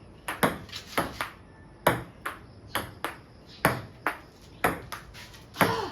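Table tennis rally: a celluloid-type ping-pong ball clicking back and forth off the paddles and the table, a sharp click two or three times a second.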